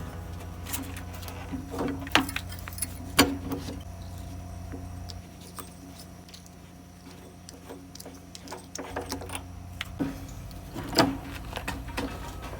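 Metal clinks and knocks from hand tools working on an old gas water heater's fittings, a few sharp strikes standing out among lighter clicks, over a steady low hum.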